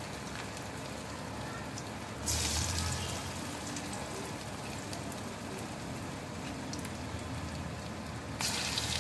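Pakoras of grated parwal in gram-flour batter deep-frying in hot oil in a kadai, a steady crackling sizzle. The sizzle swells louder twice, about two seconds in and again near the end, the second time as another pakora is dropped into the oil.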